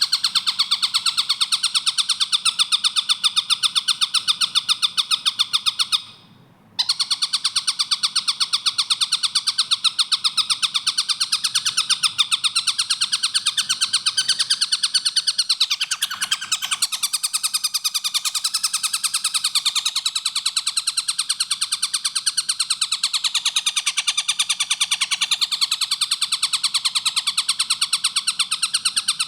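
Tengkek buto kingfisher calling in a rapid, tightly spaced run of high notes, repeated without pause, with one short break about six seconds in.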